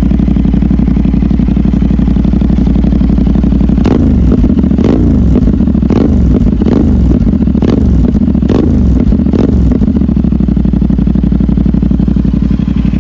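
CFMOTO 450SR's 450 cc parallel-twin engine through an SC Project aftermarket exhaust, idling and then revved with about seven quick throttle blips in the middle before settling back to idle.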